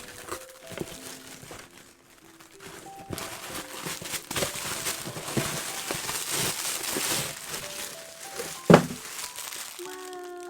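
Packaging crinkling and rustling as a parcel is opened and unpacked, loudest in the middle, with one sharp thump near the end. Soft background music plays underneath.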